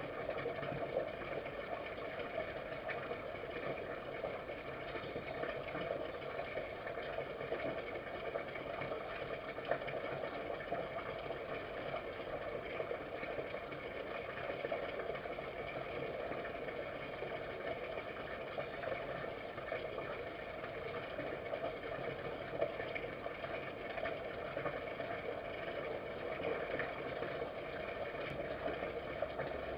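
Steady background hum and hiss at an even level, with a few faint isolated clicks.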